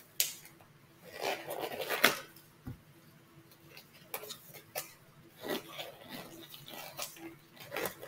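Disposable exam gloves being pulled on and worked over the fingers: rubbery rustling and stretching with a few sharp snaps, the loudest about two seconds in.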